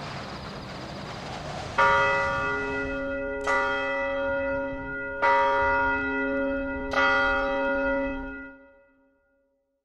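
A bell tolling four times, a stroke about every second and a half, each ringing on into the next, the ringing dying away near the end. Before the first stroke, a steady rushing hiss fades under it.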